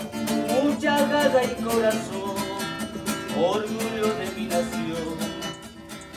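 Acoustic guitar being strummed in a steady rhythm, with a voice singing a slow, sliding melody over it.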